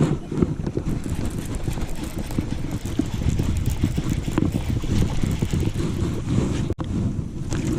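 Wind buffeting the microphone: a dense, uneven low rumble with scattered sharp knocks, cutting out for an instant near the end.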